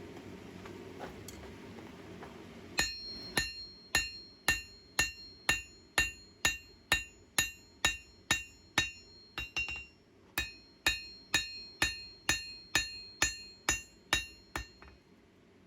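Hand hammer striking a steel knife blank on an anvil, forging the blade: a steady run of about two blows a second, each ringing brightly, starting about three seconds in after a low steady rumble, with a brief hitch near the middle, and stopping just before the end.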